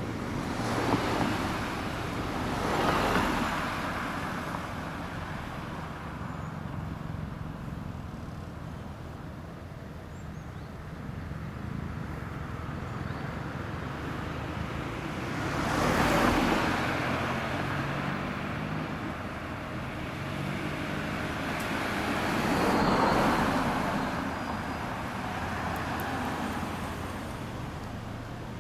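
Road traffic: cars driving along a town street, with a steady low rumble and four louder pass-bys that swell and fade, two close together near the start, one about halfway through and one a little later.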